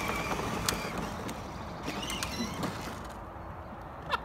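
Battery-powered ride-on toy Jeep rolling over asphalt: its hard plastic wheels rumble and crackle, with creaks and scattered clicks from the plastic body.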